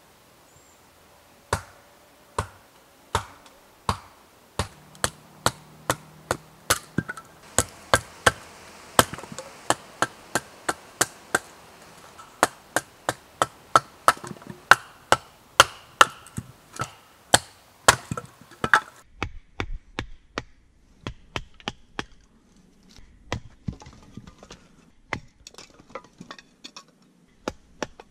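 Hatchet splitting kindling wood on a chopping block: a long run of sharp chops, slower at first, then about two a second, turning to lighter, sparser strikes over the last third.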